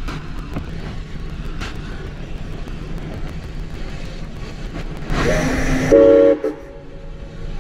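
1928 Lima-built Shay geared steam locomotive running with a steady low rumble. About five seconds in, a rush of steam gives way to a short steam whistle blast that cuts off after under a second.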